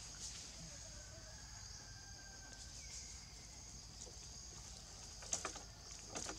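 Faint, steady high-pitched drone of forest insects, with a few soft clicks and rustles near the end as the monkey handles the dry leaf litter.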